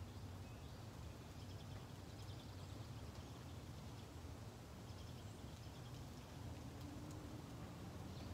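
Quiet outdoor background: a steady low rumble with faint bird chirps scattered through it.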